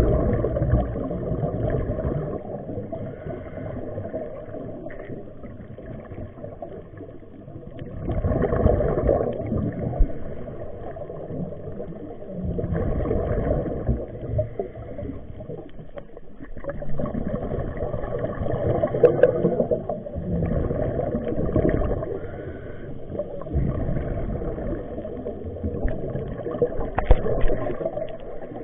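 Underwater sound of a scuba diver breathing through a regulator, the exhaled air bubbling out in muffled surges every few seconds.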